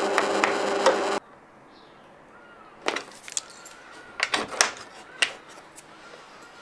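Benchtop drill press running with its bit cutting into a metal washer, cutting off abruptly about a second in. Then a brass barrel bolt latch is worked by hand, with several sharp metal clicks and clacks as the bolt slides.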